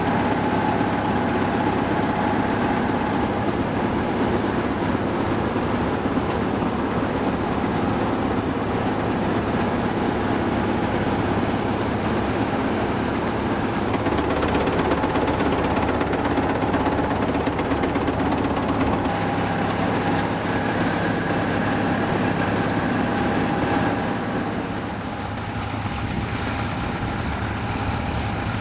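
Vintage Massey Ferguson combine harvesters running steadily as they cut, engine hum under a steady whine from the threshing machinery. The sound turns a little quieter and duller near the end.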